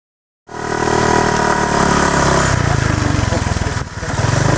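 A motor engine running steadily, cutting in abruptly about half a second in, with a brief dip in level near the end.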